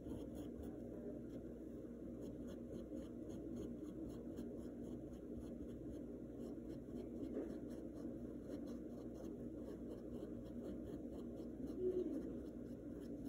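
Faint scratchy strokes of a small paintbrush dabbing paint onto a stretched canvas, over a steady low background hum.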